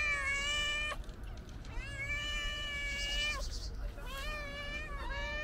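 Calico cat meowing loudly: a string of long, drawn-out meows, one carrying on from before, one through the middle, then two shorter ones near the end.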